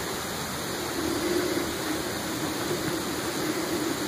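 Steady rushing background noise with a low hum, like a running appliance or ventilation; no distinct knocks, scratches or voices stand out.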